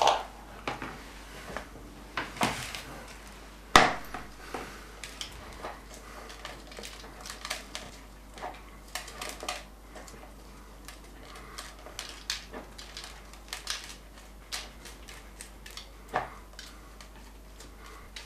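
Scattered clicks and knocks of a kitchen knife on a plastic cutting board and of a plastic bowl being handled while a chili is deseeded and cut, with one sharper knock about four seconds in.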